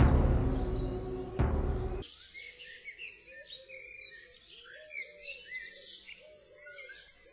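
Music playing, cutting off abruptly about two seconds in. Then woodland birdsong: many quick high chirps and trills, over a few lower repeated calls.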